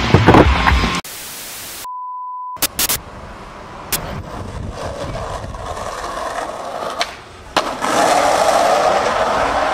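A second of static hiss and a short steady beep, then skateboard wheels rolling on street asphalt with a few sharp clacks. The rolling gets louder near the end as the skater speeds down a hill.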